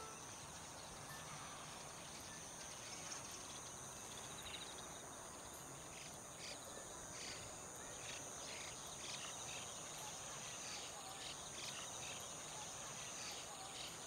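A flock of white-cheeked starlings calling: many short, harsh notes in an irregular scatter, starting a few seconds in and coming thicker in the second half. A steady high-pitched insect trilling runs beneath.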